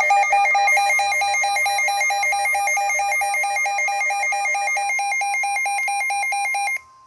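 Emergency alert warning tone announcing a severe thunderstorm warning: a loud, buzzy electronic tone that warbles between two pitches about four times a second. It cuts off abruptly near the end, leaving only a faint steady tone.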